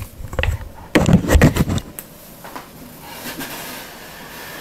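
Knocks and clatter of handling on a tabletop as a pair of over-ear headphones is set down, loudest about a second in, followed by softer rubbing and scraping.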